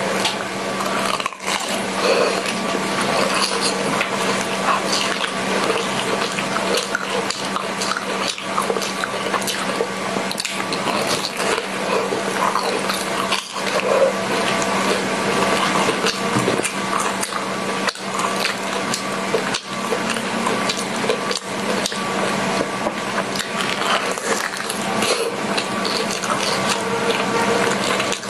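Close-miked wet chewing and smacking of a mouthful of purple-rice bread with a fried crust and a sticky purple rice and cream filling, full of small clicks and squelches, over a steady low hum.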